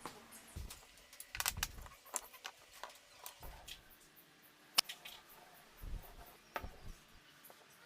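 Scattered light knocks, taps and clicks of workshop handling at irregular intervals, with a small flurry about one and a half seconds in, a sharp click near the middle and a couple of dull thumps near the end.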